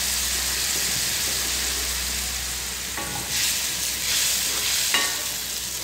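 Pabda fish sizzling steadily in hot oil and spicy masala in a pan, with a faint low hum underneath. Two brief taps come about three and five seconds in.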